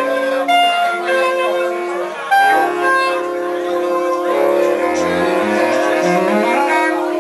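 Saxophone quartet playing held chords, several parts sounding together, with the lowest voice stepping upward over the last couple of seconds.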